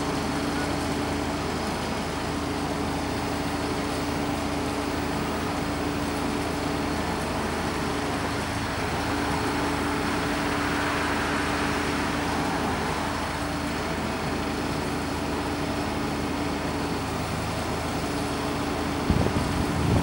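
A parked truck engine idling with a steady hum. A car drives past about ten seconds in, and a couple of sharp knocks come near the end.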